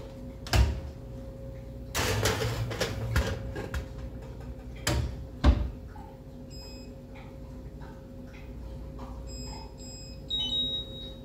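Knocks and a scraping clatter as the oven door is handled and the rice-flour sponge's baking pan goes into the built-in electric oven, with two knocks around five seconds in. Then faint short key beeps from the oven's touch panel as the timer is set, and one longer beep near the end, over a steady hum.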